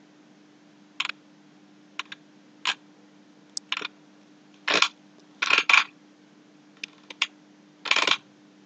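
Computer mouse being scrolled and clicked: about a dozen short, faint clicks and taps at irregular spacing, some in quick pairs, over a faint steady low hum.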